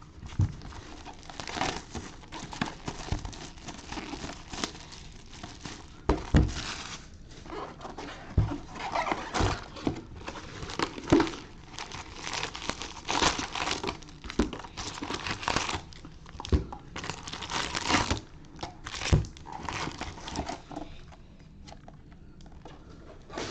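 Plastic wrapping crinkling and tearing as a sealed box of Bowman baseball card packs is opened and handled, with a few soft knocks, going quieter near the end.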